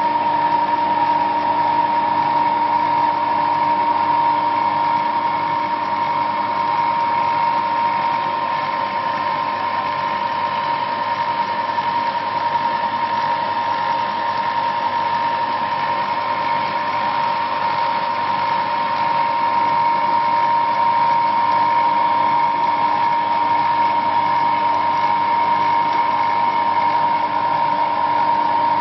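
Hobbymat MD65 small hobby lathe running unloaded at a steady speed, its electric motor and belt-driven spindle giving a steady whine.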